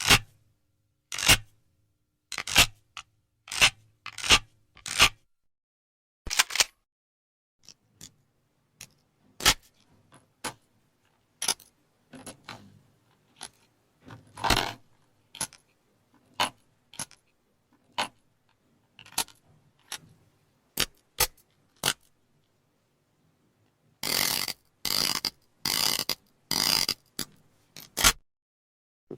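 Firearm loading and reloading sound effects: a string of sharp metallic clicks and clacks, singly or a few at a time with gaps between, and a quicker run of longer, rattling strokes near the end.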